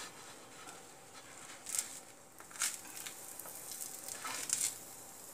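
A few short scraping rustles of a spatula against a crisp rava dosa as it is folded on a hot oiled pan, over a faint steady sizzle.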